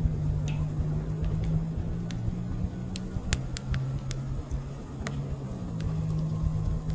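Split firewood logs burning in an open fire: sharp crackles and pops, about a dozen scattered irregularly, over a steady low rumble.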